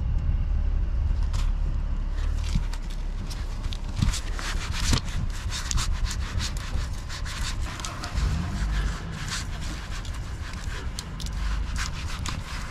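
A rag scrubbing the underside of a car's front end, wiped with isopropyl alcohol to clean off grease and dust. Rapid, repeated scratchy rubbing strokes start about two seconds in, over a low rumble.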